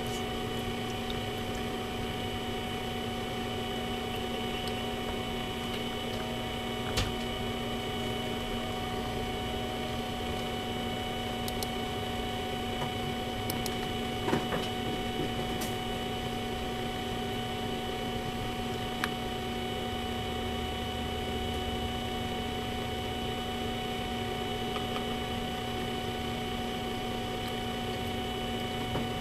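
Steady electrical hum made of several constant tones, with a few faint clicks, the sharpest about seven seconds in and a small cluster around fourteen seconds.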